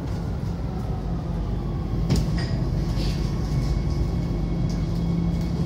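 Metro train heard from inside the carriage, slowing as it pulls into a station: a steady low rumble with an electric motor whine falling in pitch, and a sharp click about two seconds in.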